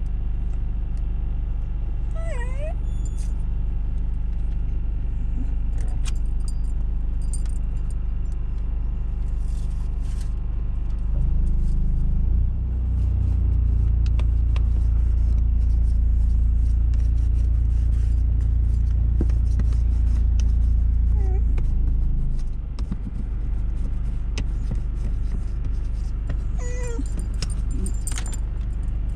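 A car's steady low rumble inside the cabin, swelling for about ten seconds in the middle. A dog gives a few short whines, with some light metallic jingling.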